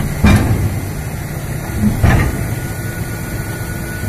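Komatsu excavator's diesel engine running steadily as its bucket pushes the rear of a stuck tank truck, with two heavy clunks about two seconds apart.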